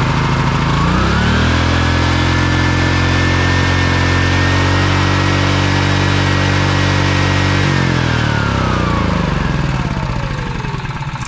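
Honda GX240 single-cylinder engine on an EB3800X generator running; about a second in it speeds up high and holds there for several seconds, then slowly falls back near the end. The overspeed is more than it should go, which the mechanic takes for a sticking governor.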